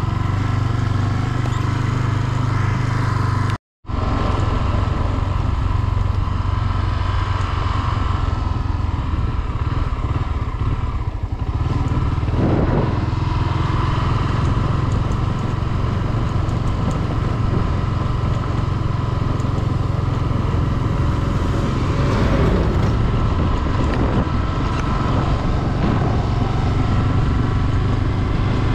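Honda CB 250F Twister's single-cylinder four-stroke engine running steadily. The sound drops out completely for a split second just under four seconds in.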